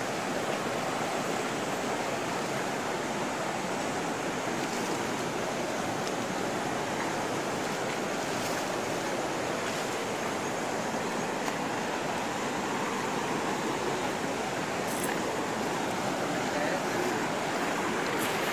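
Steady rushing of a swollen, muddy river in flood, running high and fast.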